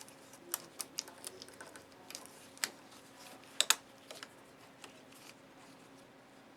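Scattered light clicks and taps of a cover plate and cable being handled and set in place over a slit lamp's dimmer board, the sharpest clicks about two and a half and three and a half seconds in.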